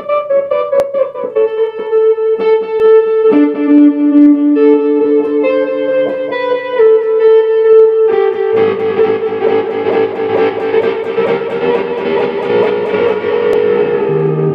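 Sustained instrument notes played through the Howler optical tremolo pedal, pulsing rapidly. About eight seconds in, the pedal's feedback loop is engaged and the sound thickens into a dense, noisy, wobbling wash that holds to the end.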